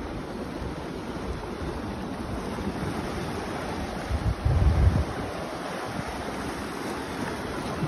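Sea surf washing against black volcanic rocks, a steady rush of water, with wind buffeting the phone's microphone, strongest about four to five seconds in.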